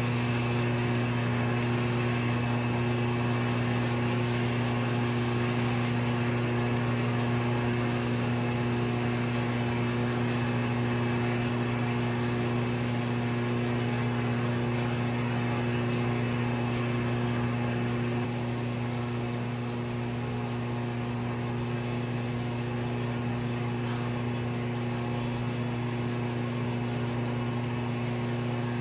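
Crankshaft grinder running steadily, its grinding wheel regrinding a BSA A65 crankshaft journal toward 20 thousandths undersize: an even electric-motor hum with a hiss over it, a little quieter after about two-thirds of the way through.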